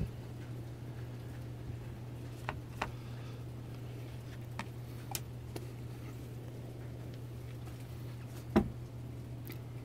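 Hands handling a starter motor armature while working grease into its end bearing: a few light clicks and taps, and one louder knock near the end, over a steady low hum.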